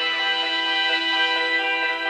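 A Samsung Galaxy Note 10 Lite ringtone playing, a melody of held notes stepping from one to the next.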